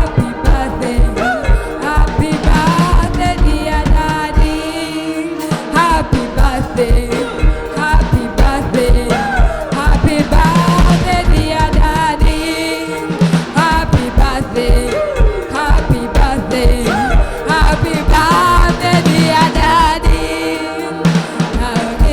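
Background music with a steady drum beat and a singing voice.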